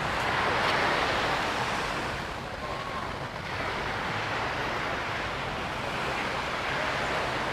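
Small sea waves breaking and washing up on a sandy beach, swelling up about a second in and again near the end.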